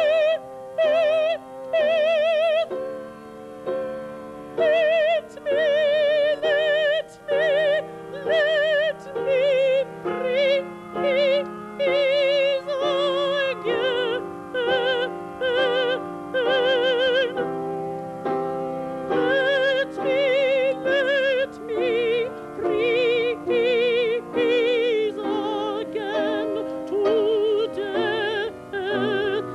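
A male opera singer singing in a high, operatic style with strong vibrato, in short held notes broken by brief breaths, over steady held accompaniment notes.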